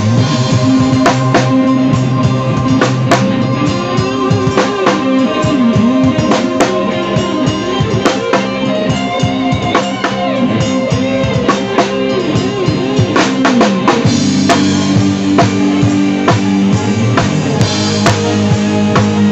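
A dangdut band playing an instrumental passage: drum kit with kick and snare strokes over sustained keyboard and bass tones. A bending lead melody runs through the first two-thirds, then the sustained chords come forward.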